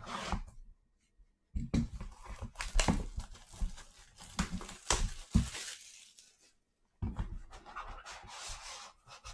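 Cardboard trading-card box (Panini Gold Standard football hobby box) being torn and pried open by hand: ripping and crinkling with a few sharp knocks. It comes in two spells with a short pause between them.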